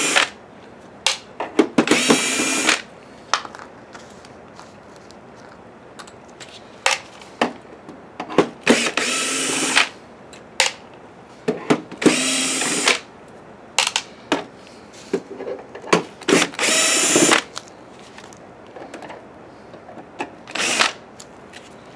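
DeWalt 12-volt cordless drill driving screws out of a plastic projector case. It runs in short bursts: four of about a second each and several brief blips, with pauses between them.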